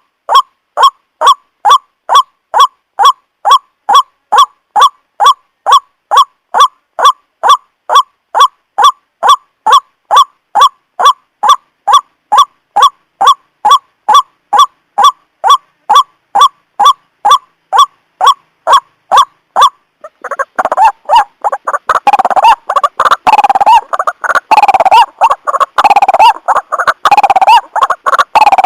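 White-breasted waterhen (ruak-ruak) calls played as a trapping lure: a short honking note repeated evenly, about two or three a second. About twenty seconds in it gives way to a denser, overlapping run of harsher calls.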